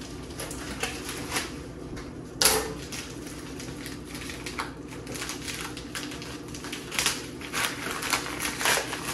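Scissors snipping a small white padded mailer open, then the plastic envelope crinkling and rustling as it is handled and pulled open. A sharp crackle stands out about two and a half seconds in, and the crinkling comes in quick clusters later on.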